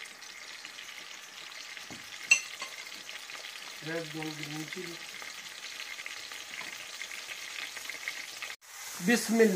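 Chicken pieces sizzling in hot oil in a steel pan, a steady frying hiss. There is a sharp clink about two seconds in and a brief hum of a voice around four seconds.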